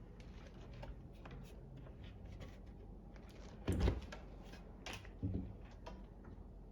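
Handling noises from dishwasher parts being worked on: scattered small clicks and taps, with one louder knock about four seconds in and a lighter one about a second later.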